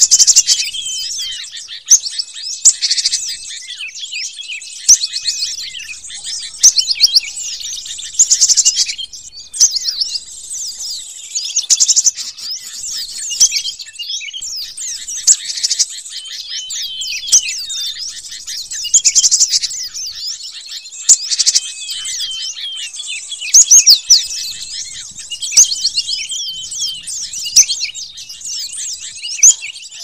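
Cinereous tit (gelatik batu) calls played as a bird-trapping lure: dense, rapid, overlapping chirps and chattering, high-pitched, with sharp louder calls every second or two.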